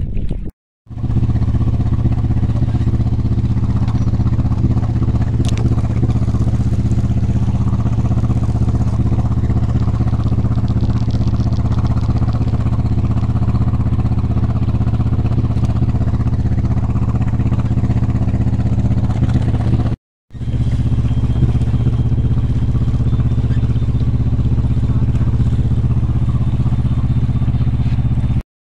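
Beta Marine Beta 16 inboard diesel engine running steadily under way, cutting out twice briefly. Over the last several seconds a faint, thin, high, steady tone sounds above it: the engine's overheating alarm, set off by a destroyed raw-water pump impeller.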